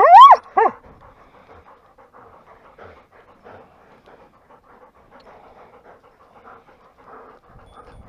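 German shorthaired pointers: two quick, high, loud whines in the first second, then steady rapid panting. The dogs are being held sitting while collared before the hunt.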